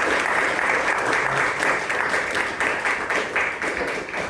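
Audience applauding, dense clapping that starts to thin out near the end.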